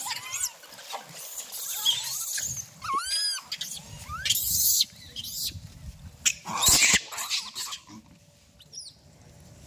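A baby monkey's high-pitched squeaks and squeals, short calls that bend up and down in pitch, the clearest about three seconds in, mixed with a few rustling bursts. It quietens near the end.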